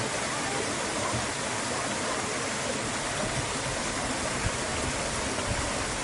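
Shallow stream running over and between boulders: a steady rush of flowing water.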